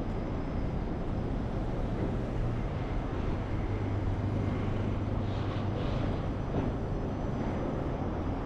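City street traffic: a steady rumble of vehicle engines and tyres, with a deeper engine hum that grows louder through the middle.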